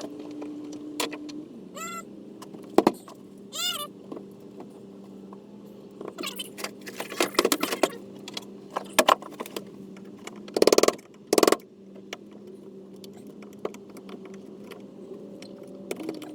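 Hand-tool work on a wooden boat's deck structure: irregular metallic clinks, knocks and rattles of tools and screws. There are two short squeaks that bend in pitch about two and four seconds in, and two louder rattling bursts about eleven seconds in. A steady low hum lies underneath.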